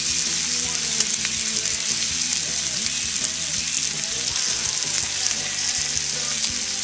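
Strips of bacon sizzling on a hot cast iron flat-top tray over wood coals: a steady, dense hiss with scattered small pops of spitting fat.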